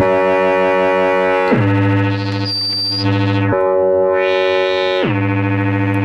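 EMS Synthi VCS-3 synthesizer sounding a sustained drone as its knobs are turned. The pitch slides down about a second and a half in, jumps back up about three and a half seconds in, and slides down again near the end. The upper tones sweep away and back around the middle, and a short high tone sounds briefly about halfway through.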